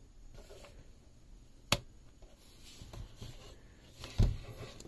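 Hands handling a plastic clock radio: one sharp click a little under two seconds in and a duller, low knock near the end.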